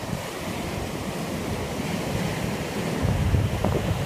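Ocean surf breaking and washing up on a sandy beach, with wind buffeting the microphone; the low rumble swells about three seconds in.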